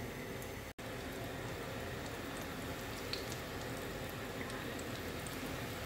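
Hot oil bubbling and sizzling steadily in a pan as chicken-and-potato cutlets deep-fry, with scattered small crackles. The sound cuts out for an instant less than a second in.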